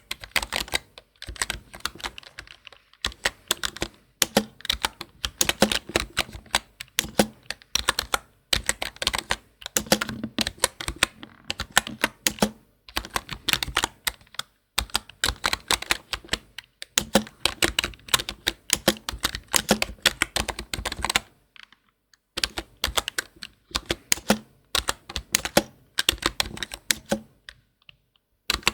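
Fast typing on a computer keyboard: dense runs of key clicks, broken by brief pauses every few seconds.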